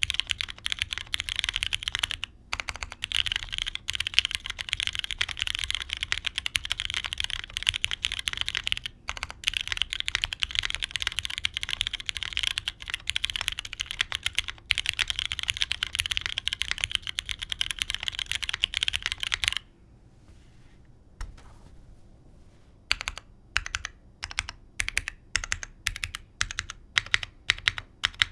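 Fast, continuous typing on a Keebscape Solaris custom mechanical keyboard: lubed Cherry MX2A Brown tactile switches in an FR4 plate on an O-ring mount, with GMK keycaps. The typing stops about 19 seconds in, and after a short pause it resumes as slower, separate keystrokes.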